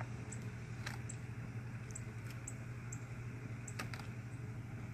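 A few light clicks and taps over a steady low hum, with faint small ticks coming at a regular pace.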